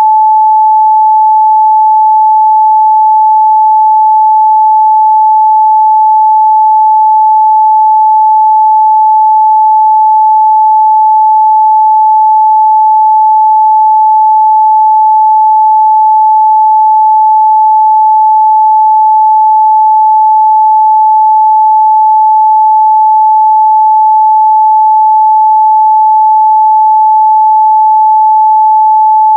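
Steady pure sine-wave test tone at 867 Hz, held loud and unchanging, with no other sound.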